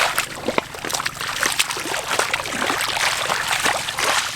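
Shallow water splashing and sloshing, with many small, irregular splashes in quick succession.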